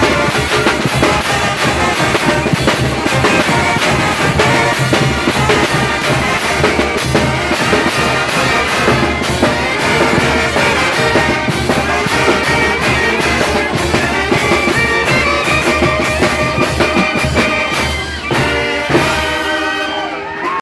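Mixtec brass band (banda) playing with trumpets and drums, a steady driving beat under the brass; a few seconds before the end the texture thins into clear runs of pitched notes.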